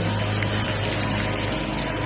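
Background music of held low notes over a steady rushing noise.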